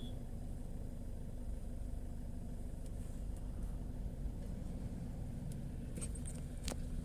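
A Toyota Innova's engine running at low speed, a steady low rumble with a faint hum, heard from inside the vehicle. A few sharp clicks come near the end.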